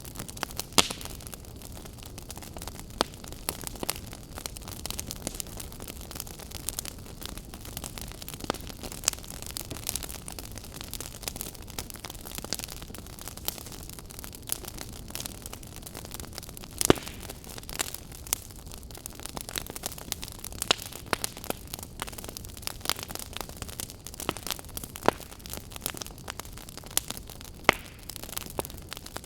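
Wood campfire crackling: irregular sharp pops and snaps over a steady hiss of burning, with a few louder pops standing out, one about a second in, one around the middle and one near the end.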